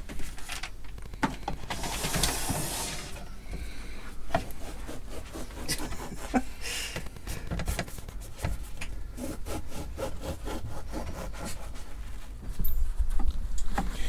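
A long slicing knife sawing through crusty bread rolls on a plate, in a run of quick back-and-forth strokes.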